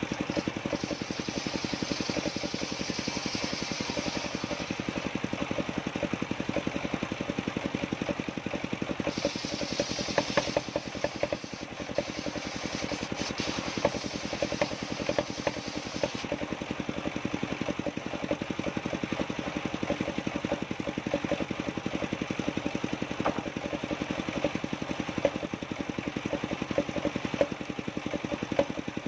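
An engine idling steadily with a rapid, even firing rhythm.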